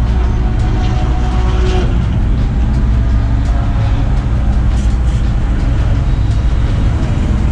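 Turbocharged Honda D16 four-cylinder in an EK Civic running hard at racing speed, with a steady, loud engine and road noise.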